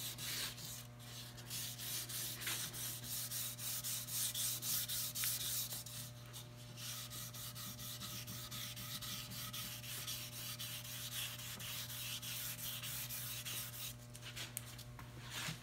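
400-grit sandpaper rubbed by hand over the stained, varnished mahogany of a wooden half-hull boat model, in a steady run of quick, short strokes. This is a light sanding between coats of varnish, done against the grain.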